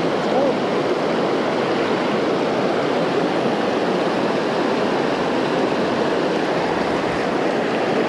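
Creek waterfall rushing steadily, an even, unbroken wash of falling water.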